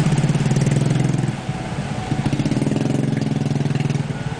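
A vehicle engine idling close by: a steady low drone with a fast even pulse, which fades for about a second partway through and then comes back.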